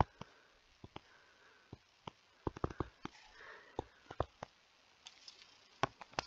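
Faint, irregular taps and clicks of a stylus on a tablet screen during handwriting, coming in small clusters.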